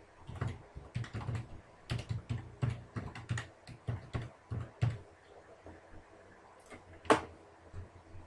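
Typing on a computer keyboard: an irregular run of keystrokes for about five seconds, then after a pause a single sharper click.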